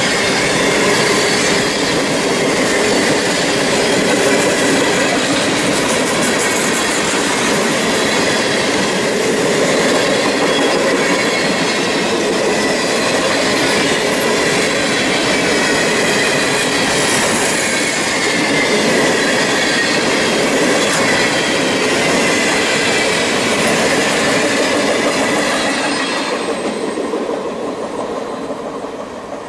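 Freight train of container flatcars rolling past at track level, the wheels squealing with thin wavering tones over the steady rolling noise. The sound fades away near the end as the last car passes.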